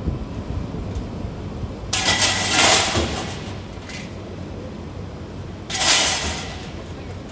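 Heavy construction machinery: an engine running low and steady, with two loud bursts of hissing, one about two seconds in lasting about two seconds and a shorter one near the end.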